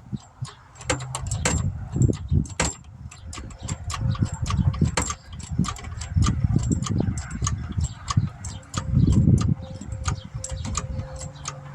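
Car jack being set under a 2006 Mustang GT and worked to lift it: an irregular run of metallic clicks and clanks with heavier low thuds, the biggest about nine seconds in.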